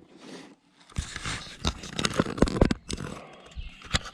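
Fishing tackle being handled while a lure is picked out and put on a rod: a quick run of irregular small clicks and knocks with some scraping and rustling.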